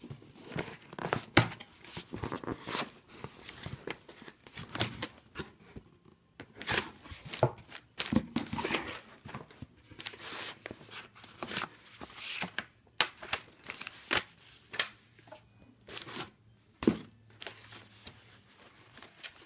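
Unpacking a taped cardboard shipping box: packing tape ripping, cardboard flaps being opened, and plastic air-pillow packing crinkling as the contents are handled, a run of irregular rips, scrapes and crackles.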